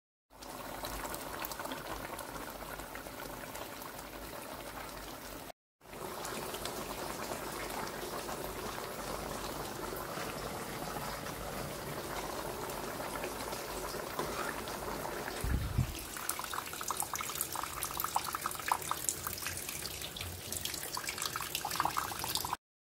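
Steady sizzling of food frying in hot oil, cut off twice by brief silences. About two-thirds through comes a dull thump, followed by sharp crackling pops and spatter.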